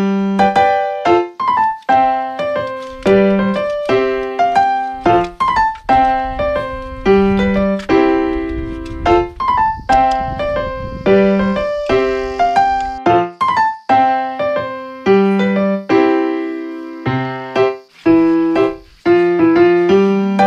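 Background piano music: a light melody of separate notes, each struck and then fading away.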